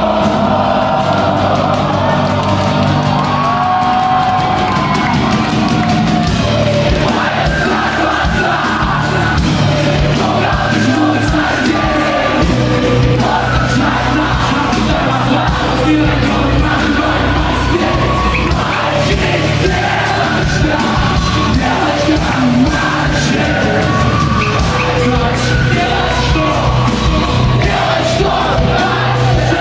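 Loud live rock band performance with drums, steady sustained chords and a vocal line, with audience noise underneath.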